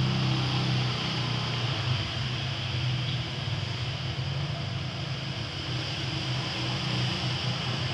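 Steady low machine hum with an even hiss behind it, running unchanged throughout.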